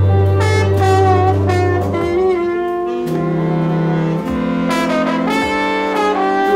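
Large jazz ensemble of brass, saxophones and strings playing sustained chords. A low bass note is held for about the first two seconds, and then the chords move through several changes.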